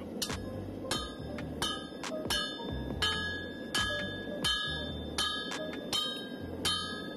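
Sledgehammer blows on red-hot leaf spring steel laid over an anvil, about ten evenly spaced strikes a little under a second apart, each one ringing out with a bright metallic tone. This is the steel being drawn out to a longer length.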